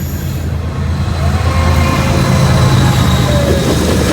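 Diesel freight train rolling past at close range: a locomotive's deep steady drone that swells to its loudest about two to three seconds in, with faint squealing from the wheels.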